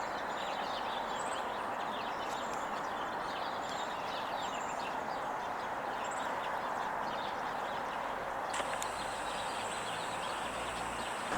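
Small birds chirping many times in short high calls over a steady outdoor background hiss. Late on, a click is followed by a thin, steady high whine.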